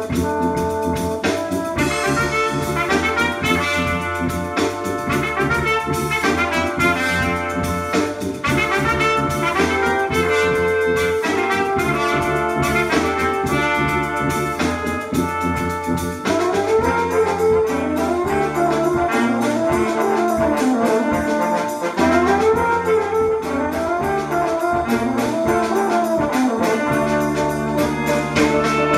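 Jazz music led by brass (trumpet and trombone) over a steady bass, played back through loudspeakers. From about sixteen seconds in, a sliding line rises and falls again and again.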